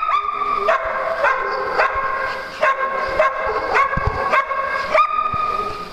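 A dog barking repeatedly in high-pitched, drawn-out yips, about nine in a row at an even pace, each starting sharply and holding its pitch briefly.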